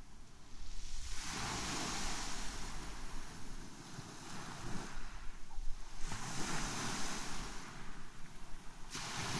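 Small sea waves breaking and washing up a white-pebble shingle beach, surging in three times.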